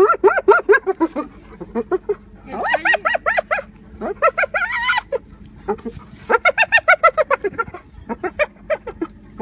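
Spotted hyena giggling: about five bouts of rapid, high-pitched staccato laughing calls, each about a second long, rising and falling in pitch with short pauses between.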